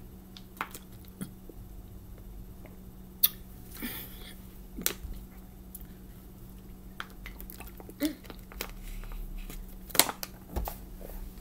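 A person drinking from a thin plastic water bottle: mouth and swallowing sounds with scattered crackles and clicks from the plastic. The sharpest clicks come about three seconds in and near the end, as the bottle is lowered.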